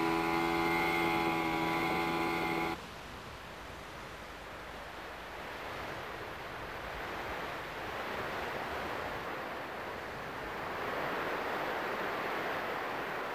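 Outboard motor of a D-class inflatable lifeboat running steadily under way, with a constant pitched drone, cutting off abruptly about three seconds in. Then a steady hiss of wind and sea, growing a little louder near the end.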